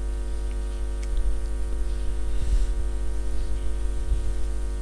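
Steady electrical mains hum: a low buzz with a ladder of even overtones, unchanging throughout.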